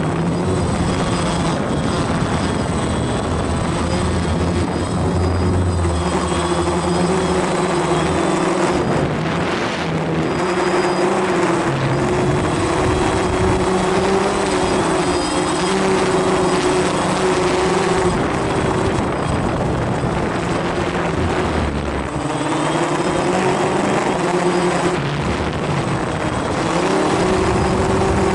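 DJI Phantom quadcopter's motors and propellers buzzing loudly right at the onboard camera in flight, the pitch wavering up and down as the motors speed up and slow down, over a steady rush of noise.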